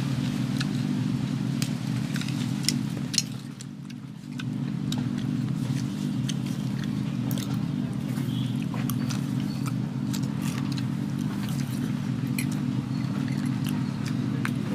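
A steady low engine-like drone that dips briefly about three and a half seconds in, with scattered small clicks and taps over it.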